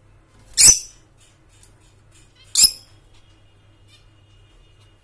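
Lutino peach-faced lovebird giving two short, loud, shrill calls about two seconds apart, with faint chirps in between.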